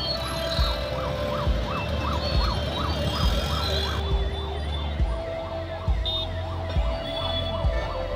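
Siren wailing up and down quickly, about three sweeps a second, over a steady low beat of a background music track.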